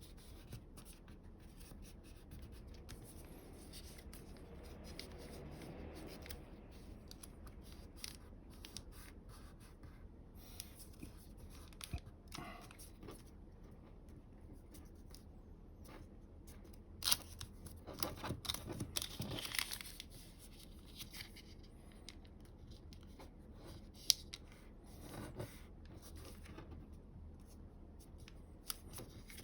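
A sheet of coloured origami paper being folded and creased by hand, making scattered soft rustles and crackles, with a denser run of sharper crackling a little past halfway.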